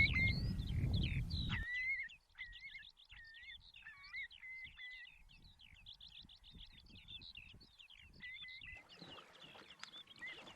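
Small birds chirping and singing, many short calls overlapping. A low rumble under them cuts off abruptly under two seconds in.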